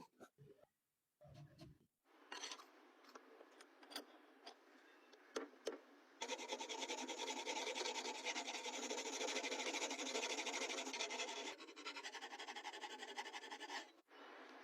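Steel knife blade being worked with an abrasive: a gritty rubbing that starts about two seconds in, grows much louder for about five seconds in the middle, then eases off.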